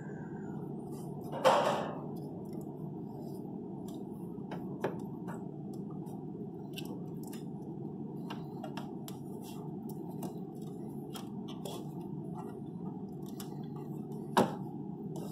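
Light metallic clicks and knocks as a replacement alternator is worked into its mount in the engine bay of a 2007 Honda Odyssey, with two louder knocks, one about a second and a half in and one near the end. A steady low hum runs underneath.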